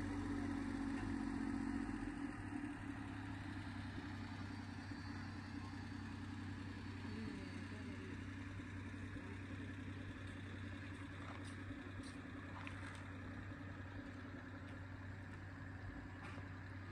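An engine running steadily out of sight, an even low hum, a little louder in the first couple of seconds.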